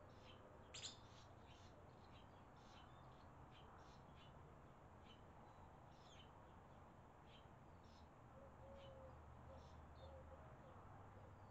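Barn swallows chirping faintly: a string of short, high chirps, a few a second, with a louder one about a second in.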